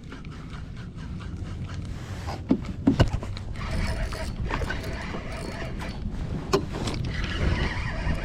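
Handling noises aboard a fishing kayak: a few sharp knocks and scrapes, two close together about three seconds in and another past the middle, over a steady low rumble of wind and water.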